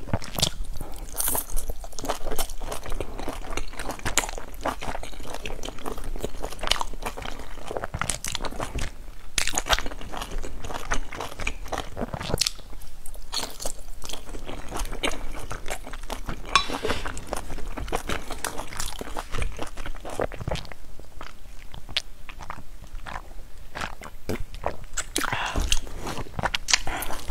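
Close-miked eating of pan-fried dumplings: steady chewing with crisp crunches and many small clicks from the mouth.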